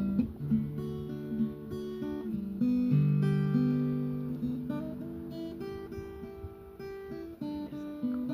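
Acoustic guitar music, plucked and strummed notes changing chord every second or so.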